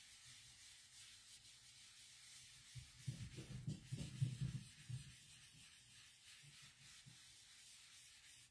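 Blending brush rubbing and dabbing ink onto cardstock. A faint, irregular scrubbing, heard for about two seconds starting about three seconds in.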